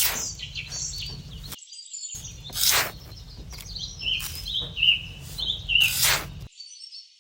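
Small birds chirping over and over in short falling calls, with a low rumble that cuts in and out and three brief, louder rushing noises about three seconds apart.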